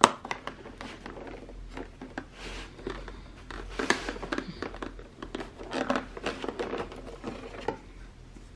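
Cardboard and paper packaging being handled: irregular rustling, crinkling and small clicks as a small tube is worked out of an advent calendar box and its card insert, with a sharp click right at the start.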